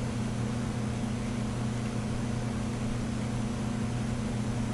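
Steady low electrical hum under an even hiss, unchanging throughout: background noise of the recording, with no race or crowd sound.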